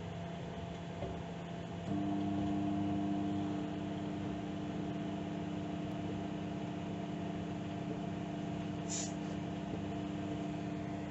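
Microwave oven running at medium power with a steady hum. About two seconds in the hum steps up louder and higher-toned, as when the magnetron cycles on at part power. A short hiss about nine seconds in.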